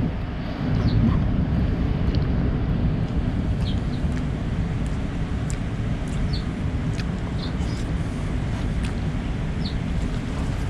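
Wind buffeting the microphone as a steady low rumble, with short high bird chirps now and then.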